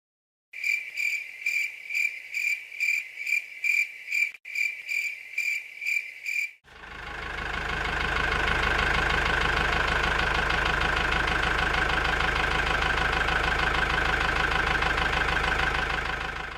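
A quick run of high, evenly spaced beeps or chirps, a little over two a second, for about six seconds, then a small motor starts up and runs with a steady hum.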